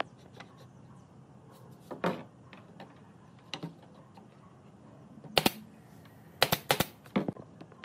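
Irregular sharp taps and knocks over a low steady background, with a double knock a little past halfway and a quick run of several near the end.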